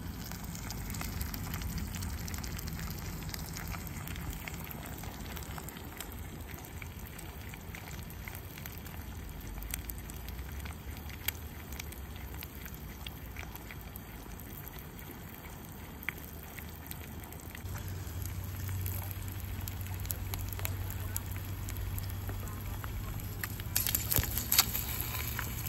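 Eggs frying in a ceramic nonstick skillet, sizzling steadily with scattered crackles and pops. The crackling grows denser and louder near the end, when sausage links are frying in the pan beside the eggs.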